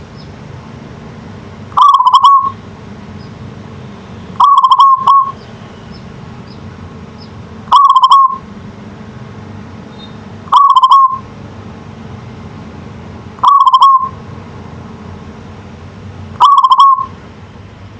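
Zebra dove (perkutut) cooing: six short stuttering coos, about one every three seconds, over a steady low hum.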